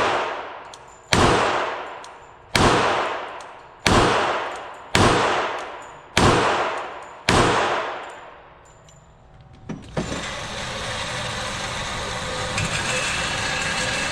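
Slow aimed fire from a Glock .45 ACP pistol: seven shots, roughly one every 1.2 seconds, each echoing away for about a second. A couple of faint clicks follow, then a steady hiss.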